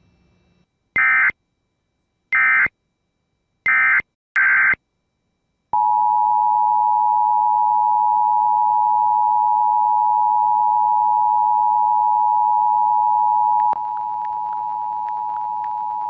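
Emergency Alert System broadcast tones from a NOAA Weather Radio station: four short bursts of SAME digital data tones, then the steady two-tone EAS attention signal sounding from about six seconds in, dropping in loudness near the end.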